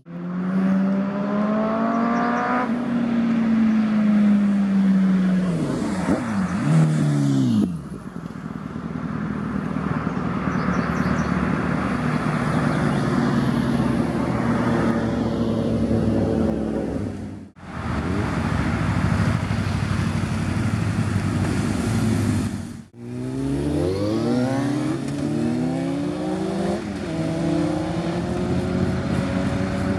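Motorcycles riding past one after another, their engines revving and then falling in pitch as each goes by. The sound breaks off sharply twice, at cuts between clips.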